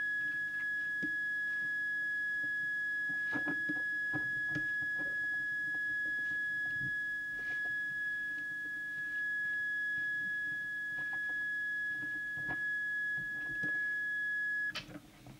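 Harvard 020 CB walkie-talkie's built-in call-tone oscillator sounding a steady, high, whistle-like tone with fainter overtones. It is keyed by holding transmit and battery-test together to modulate the transmitter while its deviation is set. The tone cuts off about a second before the end, over a low hum and a few light clicks of handling.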